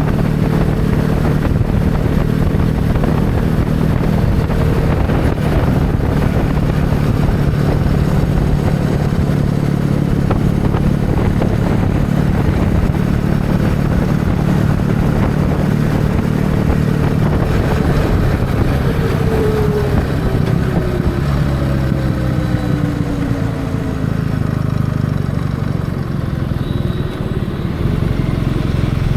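Kawasaki W650 parallel-twin engine running steadily under way, with wind rushing over the microphone. Past the middle a few falling tones are heard and the sound eases a little near the end.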